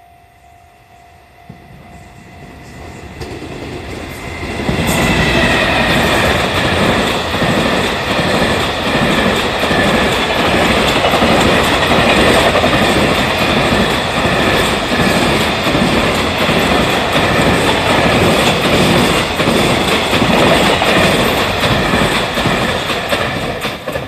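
Freight train hauled by an EF210 electric locomotive passing close by: it approaches with a rising rumble, comes past suddenly loud about five seconds in, and its container wagons clatter steadily over the rails until the sound drops away just before the end. A level-crossing warning bell rings at the start and is soon drowned out.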